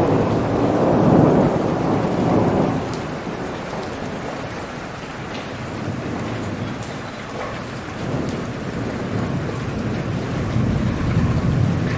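Heavy rain falling steadily, with a roll of thunder rumbling at the start that dies away about three seconds in, and another low rumble building near the end.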